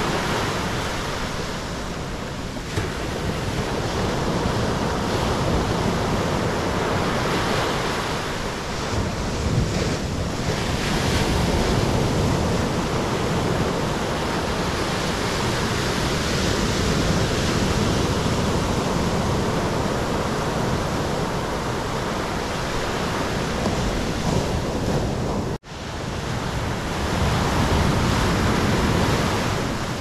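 Surf breaking and washing up a black sand beach, with foam rushing in and draining back in a continuous, slowly swelling rush. The sound drops out for an instant about three-quarters of the way through.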